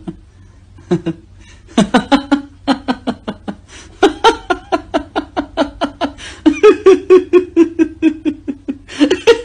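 A person laughing, building up: a short giggle about a second in, a longer burst of laughter about two seconds in, then continuous rhythmic ha-ha laughter from about four seconds on, at roughly five pulses a second.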